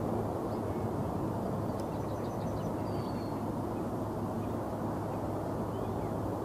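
Distant jet aircraft on the runway, heard far off as a steady low rumble with no clear whine. A few faint bird chirps come about two to three seconds in.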